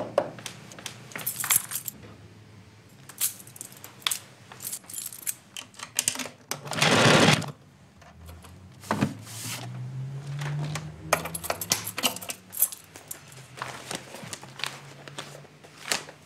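Someone rummaging through belongings in a cabinet: a scattered run of small clicks, clatters and metallic clinks, with one louder rustle about seven seconds in.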